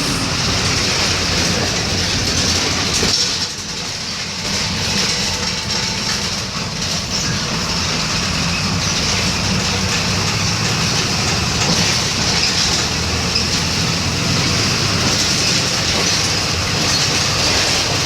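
Volkswagen 17.230 EOD city bus running on the road: steady engine drone with rattle and road noise, briefly dropping in level about three seconds in before picking up again.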